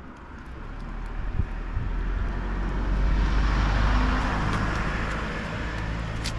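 A road vehicle driving past, its tyre and engine noise growing louder to a peak about four seconds in and then fading away.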